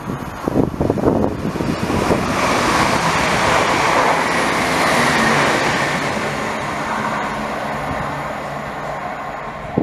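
Chiltern Railways diesel multiple unit passing through the station at speed. Its running noise builds over about two seconds, is loudest as the train goes by about four seconds in, then fades slowly as it draws away. Wind buffets the microphone at the start.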